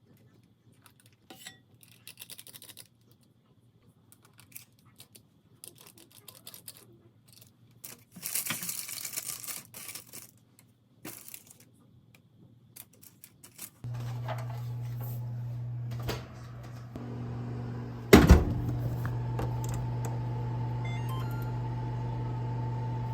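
Small kitchen clicks and a few seconds of rustling. Then, about two-thirds in, a microwave oven starts running with a steady electrical hum, with a loud clunk partway through. A final clunk comes as it stops at the very end.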